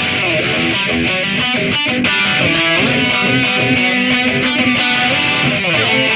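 Band playing live and loud, led by electric guitar, with sustained notes over a steady beat.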